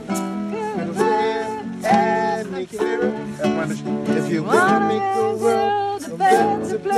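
Amateur sing-along: voices singing a pop melody to a strummed acoustic string instrument, with a steady strumming rhythm.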